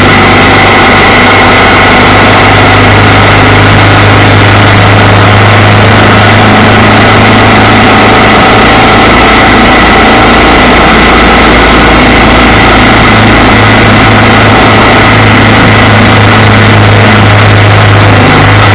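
Motorcycle engine running steadily at cruising speed, mixed with wind and road noise on a camera mounted beside the front wheel. Loud and even throughout, with no change in engine pitch.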